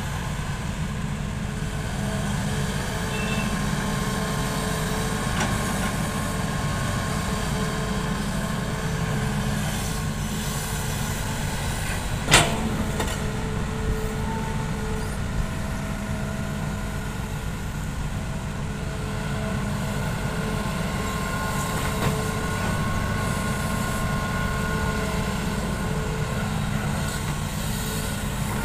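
Hitachi excavator working: its diesel engine running steadily with whines that come and go, one sharp clank about twelve seconds in and a few lighter knocks later.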